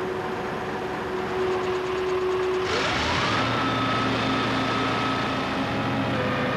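Turntable ladder fire engine running its engine-driven ladder hydraulics: a steady engine hum with a held tone, then a little under three seconds in the engine revs up and a whine rises once in pitch and levels off into a steady high whine.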